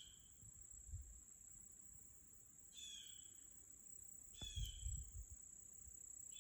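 Quiet outdoor ambience: a steady high-pitched insect drone, with a bird's short chirps about every two seconds. A few soft low thumps come about two-thirds of the way in.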